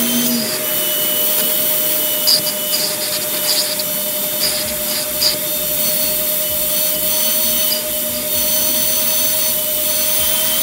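Vacuum cleaner running with a steady whine, its nozzle rubbing and scraping now and then against the truck cab's interior surfaces.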